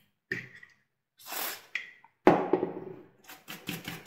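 A brief hiss, then a sharp knock a little after two seconds in. From about three seconds in, a small stiff brush scrubs the plastic steering gearbox of an RC car in quick scratchy strokes, about six a second.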